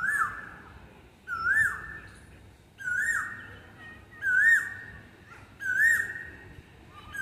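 A bird calling the same loud, rising call over and over, about once every second and a half.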